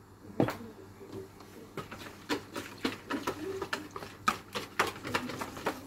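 Wire whisk clicking and tapping against the sides of a plastic mixing bowl while flour is stirred into the yeast sponge, irregular taps about three a second. A sharper knock comes about half a second in.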